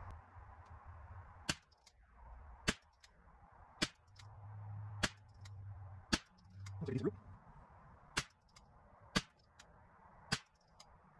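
A budget-build Ruger 10/22 semi-automatic rifle firing .22LR SK Long Range Match: a steady string of single sharp shots, about one a second.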